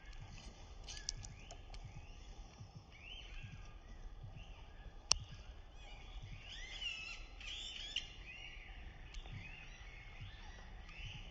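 Wild birds calling: many short, arching calls repeat throughout, thickest in the middle. A sharp click comes about five seconds in.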